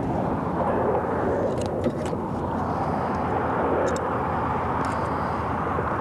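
Steady rumble of road traffic on the bridge overhead, with a few faint clicks about two seconds in and again near four and five seconds.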